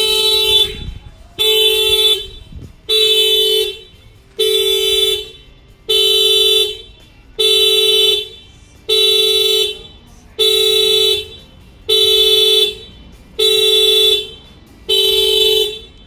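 A 2018 Honda Civic's horn honking in a steady rhythm, one long honk about every second and a half, eleven in all. This is the factory alarm going off, set off through its add-on shock sensor by a blow to the tire.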